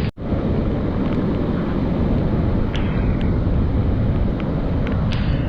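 Steady roar of a large waterfall in full monsoon flow, with rain falling. The sound cuts out for an instant just after the start, and a few faint sharp ticks come through later.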